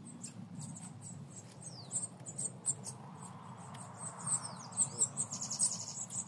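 Small songbirds chirping: thin high calls throughout, a few short falling whistles, and a fast high trill near the end.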